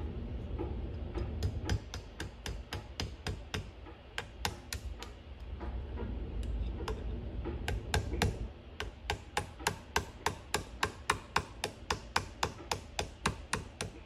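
Light, rapid taps of a small hammer on a pin punch, driving a pin out of a Crescent model 60 shotgun's action. The taps come in short runs from about a second in, pause briefly near the middle, then go steadily at about five a second over the last five seconds.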